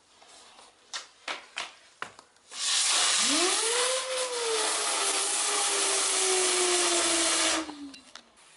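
Trompo chillador, a Mexican screaming spinning-top firework: a few sharp clicks as the fuse burns, then it ignites with a loud hiss and a whistle that rises quickly in pitch, then slowly sinks over about four seconds as the top spins down, cutting off suddenly near the end.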